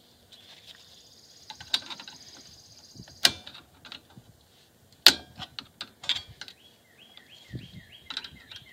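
A screwdriver and a steel brake return spring clicking and scraping against the drum-brake shoes and hardware as the spring is levered into its hole: scattered sharp metallic clicks, the loudest about five seconds in, with a quick cluster just after.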